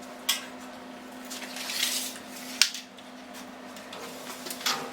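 Sheet metal being handled: light metallic clinks and scraping, with a sharp clank about two and a half seconds in, over a steady low hum.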